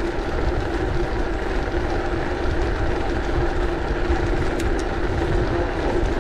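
Bicycle rolling over cobblestone paving: a continuous fast rattle of the tyres and frame over the stones, over a steady low rumble, with two brief light clicks about four and a half seconds in.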